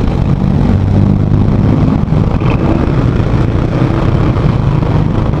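Heavy wind buffeting and riding noise on a motorcycle, picked up by a cheap external mini USB microphone on a helmet-mounted SJCAM SJ6 Legend action camera: a loud, steady rushing roar that swamps the rider's voice. The mic has no wind protection to speak of, so the recording is badly muffled.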